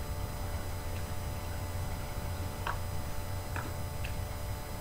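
Pickup truck engine idling with a low, steady hum, with a few sharp clicks in the second half.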